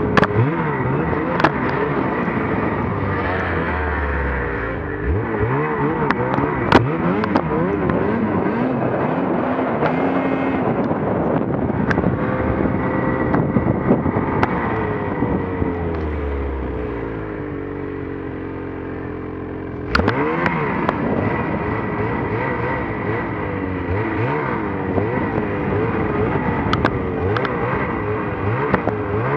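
Snowmobile engine heard close up from the rider's own sled in deep powder, its pitch rising and falling with the throttle. It settles lower and quieter for a few seconds, then the throttle opens sharply again about two-thirds of the way through, with scattered light clicks throughout.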